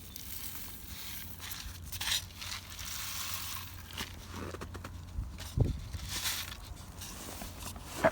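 Footsteps crunching in dry, very cold snow, coming at irregular intervals, with a low thump about five and a half seconds in and a sharp click near the end.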